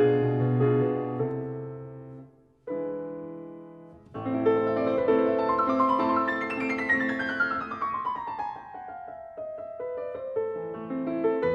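Background piano music: a phrase fades out about two seconds in, then after a brief pause the piano resumes with chords and a descending run of notes.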